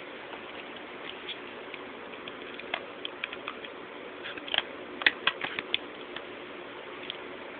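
Clicks of the plastic buttons on a Midland WR-120EZ weather radio being pressed, scattered and then in a quick run of louder presses about halfway through, over a faint steady hum.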